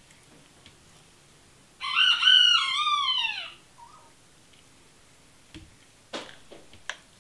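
A rooster crows once, about two seconds in: one call of about a second and a half that drops in pitch at its end. Near the end come a few short clicks and scrapes of a spoon working avocado flesh out of its skin.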